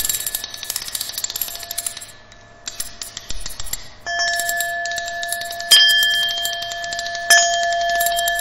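Experimental electronic noise music: steady high tones over dense crackling clicks. It thins out about two seconds in, returns louder about four seconds in, and has two sharp struck accents near the end.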